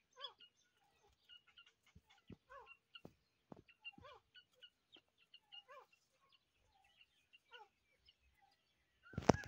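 Irani partridge chicks calling in short, quiet peeps that rise and fall in pitch, a few each second with gaps between. A sudden loud thump comes near the end.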